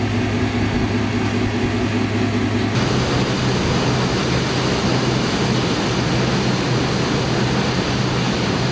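Diesel engine of a canal push boat running steadily, heard on board as a low hum. About three seconds in the sound changes abruptly to a broader rushing noise, the engine hum still underneath.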